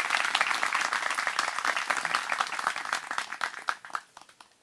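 Audience applauding, many hands clapping at once, dying away about four seconds in.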